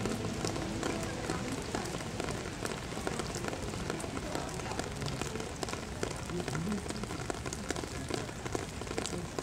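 Steady rain falling, with many small drops ticking on wet pavement.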